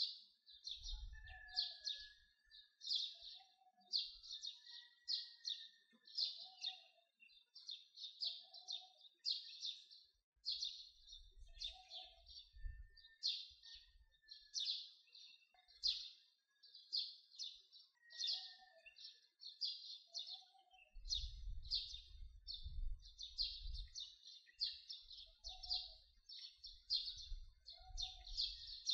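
Small birds chirping rapidly and continuously, about two high chirps a second with softer whistled calls between, and low rumbles at times.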